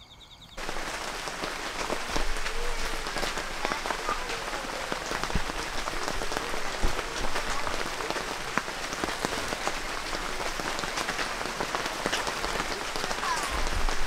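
Rain falling on tent fabric: a steady hiss of rain, dotted with many separate drop taps. It starts abruptly about half a second in.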